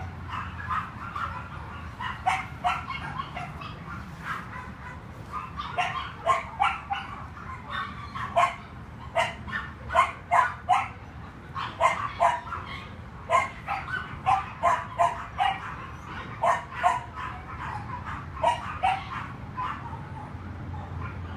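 Dogs barking and yipping in short, sharp barks, many in quick runs with brief pauses between.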